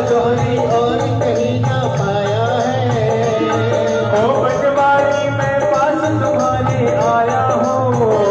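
Live Hindu devotional bhajan: a man singing a wavering melody into a microphone, amplified through a PA speaker, over a steady beat of hand drums and percussion.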